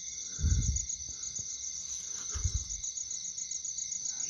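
Night insects, crickets among them, trilling steadily in a high-pitched chorus, with two low bumps about half a second and two and a half seconds in.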